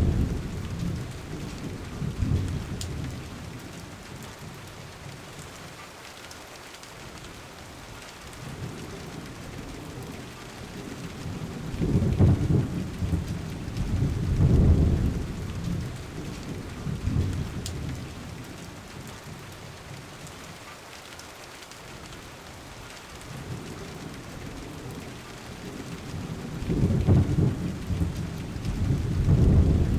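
Steady rain with low rolls of thunder that swell and fade several times, the loudest about a third of the way in, again in the middle and twice near the end.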